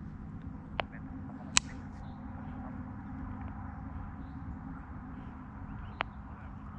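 Outdoor ambience: a steady low rumble with three short, sharp clicks or snaps, the loudest about a second and a half in.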